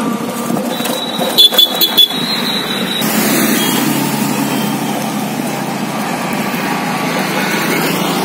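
Steady rushing of wind and road noise on the microphone of a bicycle on the move. A short high ringing with four quick sharp clicks comes about a second and a half in.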